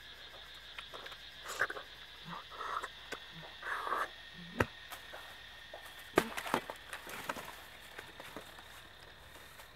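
A ripe palm fruit torn open and eaten by hand: scuffing and tearing of the fibrous flesh, sucking and biting, with a couple of sharp snaps around the middle. Near the end, bare feet step on dry straw, over a steady high-pitched hum.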